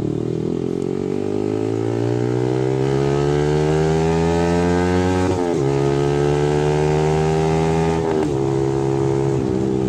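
Yamaha R15 V3's 155 cc single-cylinder engine running through an R9 aftermarket racing exhaust, accelerating hard through the gears. The pitch climbs, drops at an upshift about five seconds in, climbs again, and drops at another shift about eight seconds in.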